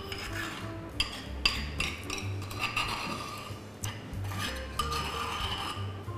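Béchamel scraped from a terracotta bowl into a metal pot, with a few sharp clinks of utensil against bowl or pot. Background music plays steadily underneath.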